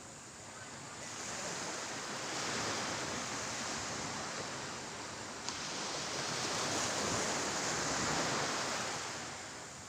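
Sea waves washing in, the rush swelling and fading twice, with a single sharp click midway.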